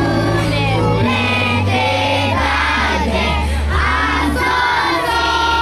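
Live song: several voices singing a melody over held bass notes from a keyboard or backing track.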